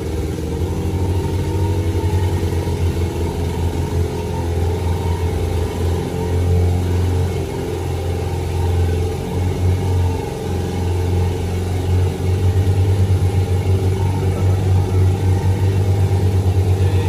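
Engine running steadily with a low hum. In the last few seconds it pulses more evenly.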